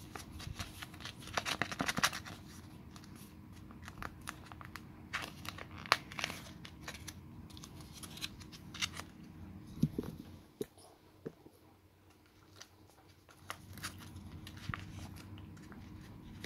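Wet cat food pouch crinkling and tearing as it is handled, opened and squeezed out over a bowl: irregular sharp crackles and rustles, thickest about a second or two in.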